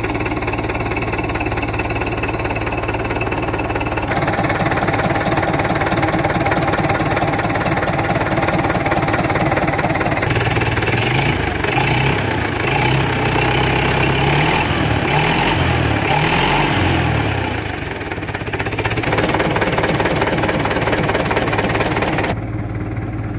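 UTB 651 M tractor's four-cylinder diesel engine idling steadily, then revved up and down several times from about ten seconds in, blowing dark exhaust smoke, before settling back to idle.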